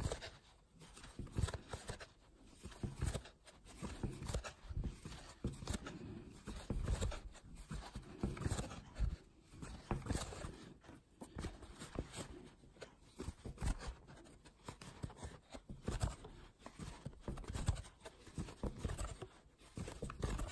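Crochet hook and yarn being worked through single crochet stitches close up: irregular soft rustling and scratching of yarn and fabric, with small clicks.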